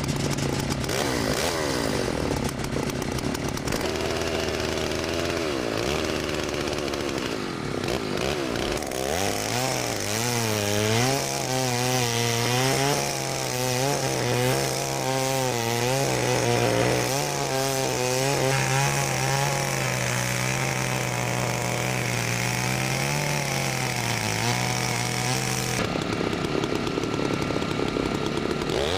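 Two-stroke chainsaw cutting into packed glacier snow, its engine revving up and down under load in waves. The sound changes abruptly near the end.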